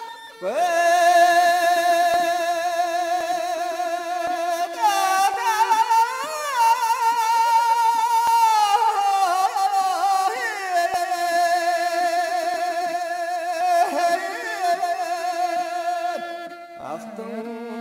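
Music of long, slowly changing held notes with a steady vibrato, several pitches sounding together, starting just after a brief gap.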